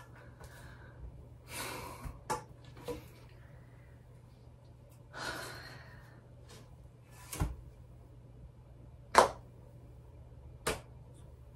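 A man sighing heavily twice in a small quiet room, with scattered sharp clicks and a soft low thump, the loudest click about nine seconds in.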